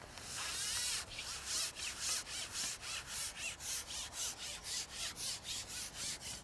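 A carbon fishing pole is being shipped back hand over hand with a hooked fish on, sliding through the angler's hands. There is one longer rubbing slide in the first second, then a steady run of rubbing strokes, about two to three a second.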